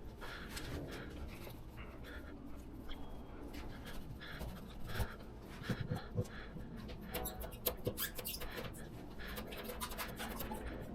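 Irregular scraping and rubbing with small clicks, from old spoiler adhesive being worked off the car's bodywork by hand. The scrapes come thicker and louder in the second half.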